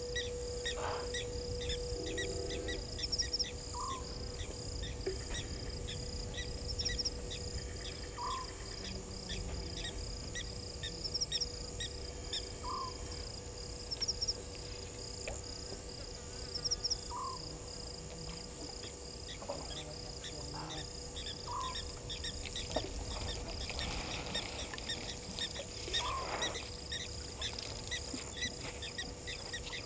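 Night chorus of crickets and other insects chirping steadily, with a short rising call repeated about every four seconds and a faint steady hum underneath.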